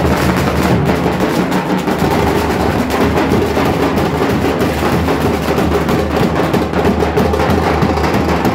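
Street band's large bass drums and other drums beaten in a fast, dense rhythm.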